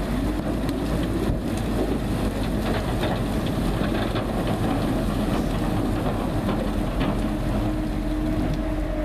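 Sugar beets pouring out of a tipping trailer body onto a pile: a continuous rumbling clatter of many small knocks. A tractor engine runs steadily underneath.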